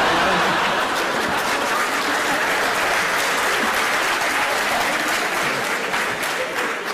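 Audience applauding steadily, fading near the end.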